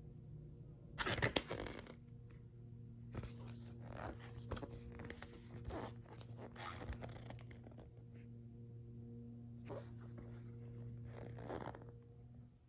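Paper and plastic packaging being handled, rustling and sliding in irregular bursts, loudest about a second in. A steady low electrical hum runs underneath.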